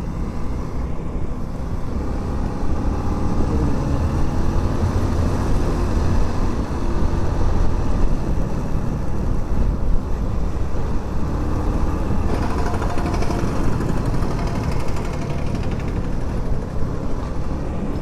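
Motorcycle riding noise on a helmet microphone: the engine running steadily under a constant low wind rumble, with a brief rise in hiss about twelve seconds in.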